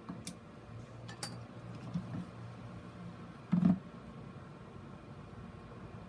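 Handling noises of a plastic grid mounting board on a plastic bucket: a few light clicks, then a short dull knock a little past the middle as the board with its moss mound is shifted.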